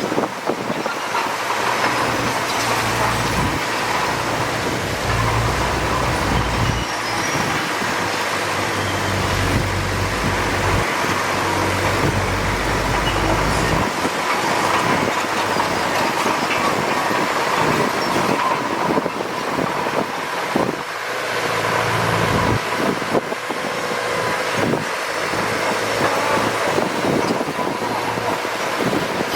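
Bulldozer working: its diesel engine runs with a deep note that grows heavy for about ten seconds from near the start and again briefly later on, over continual clanking and knocking of the steel tracks.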